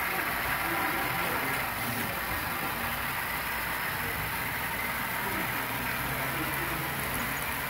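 Model freight train's cars rolling past on the layout track, a steady mechanical running noise of the wheels and trucks.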